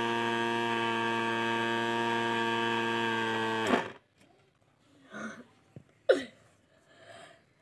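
Small electric flour grinding mill running with a steady hum, then switched off about three and a half seconds in, its sound ending abruptly with a click. A short sharp sound follows about two seconds later.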